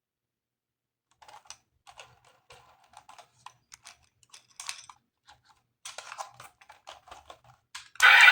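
Irregular light plastic clicks and taps of toy pieces and packaging being handled, starting after about a second of quiet. Near the end a loud, continuous, noisy sound cuts in suddenly.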